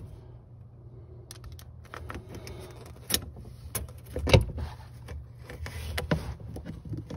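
Scattered clicks and knocks of a one-hole metal conduit strap, its screw and a screwdriver being handled and set against the underside of a cabinet to start the screw. The loudest knock comes about four seconds in.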